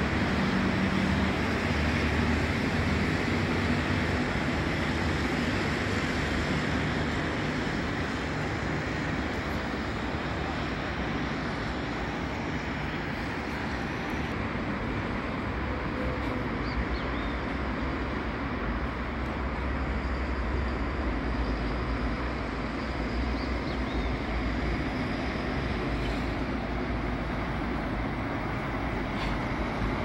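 Steady road traffic on a city avenue: cars and motorcycles passing, with a heavy truck's deep engine rumble growing stronger through the second half.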